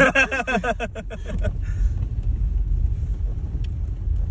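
Steady low rumble of a vehicle on the move, with some wind noise on the microphone.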